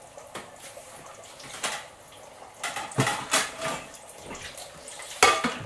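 Kitchen cabinet being opened and dishes handled: a few scattered knocks and clatters, with a sharper, louder knock near the end.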